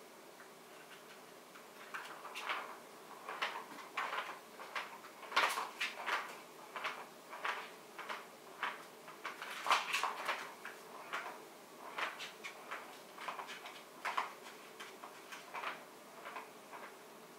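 A ball knocking and rattling around inside a plastic cat track toy as a kitten bats it: an irregular string of sharp clicks and knocks, one to three a second, starting about two seconds in and thinning out near the end.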